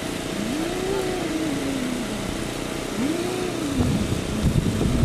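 Outdoor noise with a pitched sound that rises and falls twice, then wind buffeting the microphone from about four seconds in.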